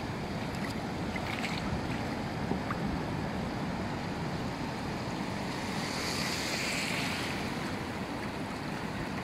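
Shallow surf breaking and washing in around the legs of a wader standing in it, a steady hiss of moving water, with a louder wash of a wave about six seconds in.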